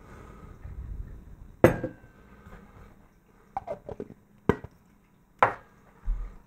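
A glass tumbler partly filled with modelling clay set down on a table with a sharp clink about a second and a half in, followed by several lighter knocks and clicks.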